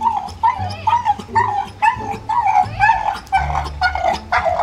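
Dog whining and yipping in quick, high, wavering cries, about three a second: the distressed whine of a dog pacing the pool's edge while its owner is in the water.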